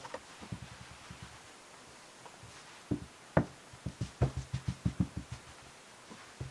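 Handling and scuffling noises as a hand plays with kittens on a blanket: irregular soft taps and knocks, with a sharper thump about three and a half seconds in, followed by a run of quick low thuds.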